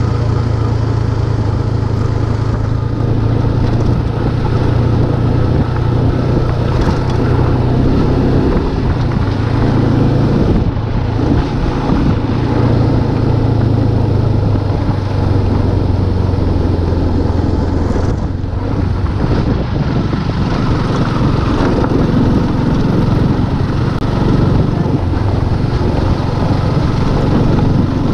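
Motorcycle engine running steadily while riding, with a few brief dips in the engine note.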